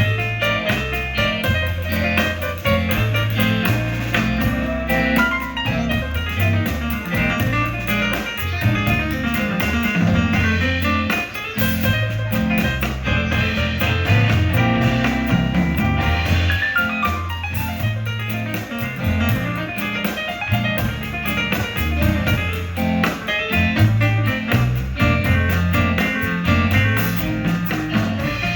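A blues band playing live with no vocals, the guitar to the fore over bass and drums.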